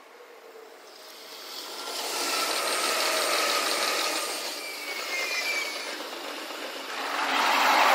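Electric commuter trains passing on several tracks, played sped up so their running noise is a high, hissing rush with no deep rumble and a few faint gliding whines. The sound swells about a second in, eases off around five seconds, and builds again near the end.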